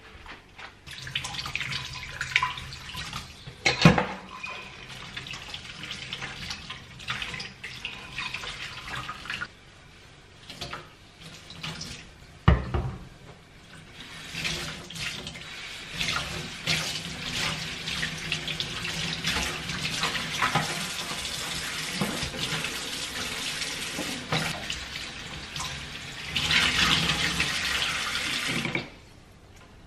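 Kitchen tap running into a stainless steel sink while a soapy sponge and a dishcloth are squeezed and rinsed under it, the water splashing. Two sharp knocks, about four and twelve seconds in; the water stops shortly before the end.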